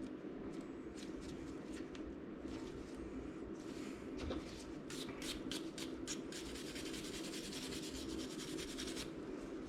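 Scrubbing a rust-seized steel wrench fresh out of an Evaporust soak to clear off its black residue: a few faint scrapes, then steady, fast scrubbing strokes from about two-thirds of the way in, over a low steady hum.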